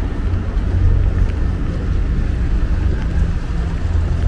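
Low, steady rumble of road traffic on a city street.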